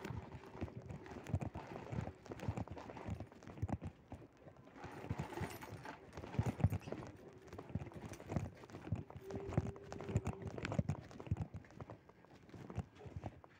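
Irregular knocking and rattling of an electric scooter jolting as it is moved slowly over a rough floor. A short steady tone sounds about nine seconds in and lasts about a second.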